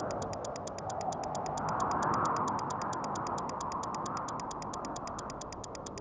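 Rapid, even ticking of a watch, about eight ticks a second, over a steady rushing noise that swells about two seconds in.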